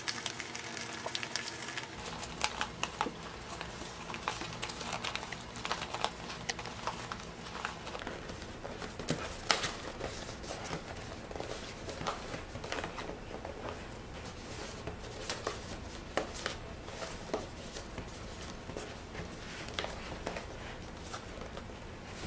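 Stiff Stardream paper of a modular origami model crinkling and crackling under the fingers as it is pressed and turned, in irregular small clicks, a little louder about nine to ten seconds in.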